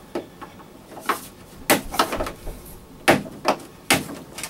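A string of sharp clicks and knocks from cutting the zip tie on a heavy-duty hard-shell carrying case and handling the case, the loudest three near the middle and end.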